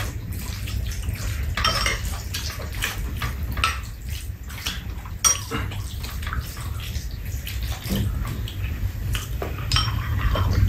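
Metal spoons clinking and scraping against ceramic rice bowls as two people eat, in many short irregular clicks over a steady low rumble.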